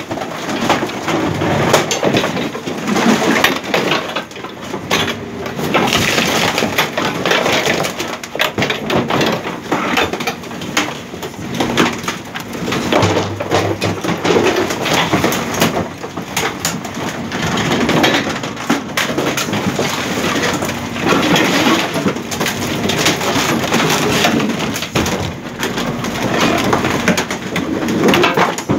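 Garbage truck's compactor crushing metal-framed chairs with wooden seats in the hopper: continuous cracking, creaking and snapping of bending metal and breaking wood, over a steady low hum.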